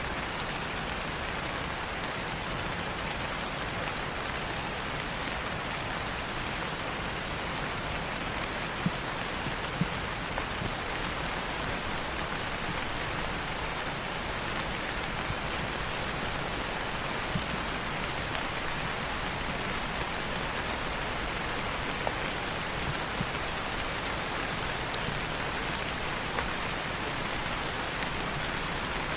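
Steady rain falling on foliage, with a few louder single drops ticking now and then.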